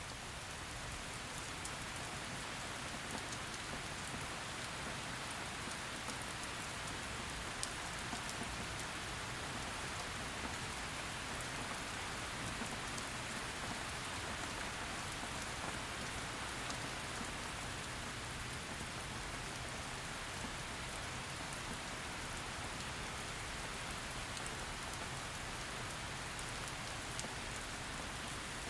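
Heavy rain falling steadily, a dense even hiss scattered with small sharp drop impacts.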